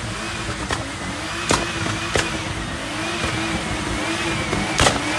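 Drift car's engine held at high revs during a burnout, its pitch wavering slightly, with four sharp exhaust bangs as flames shoot from the exhaust.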